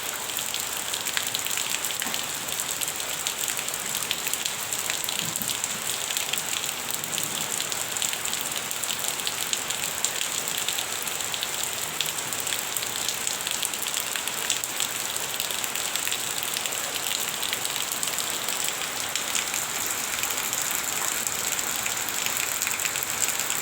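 Light rain falling steadily, a dense patter of many small drops.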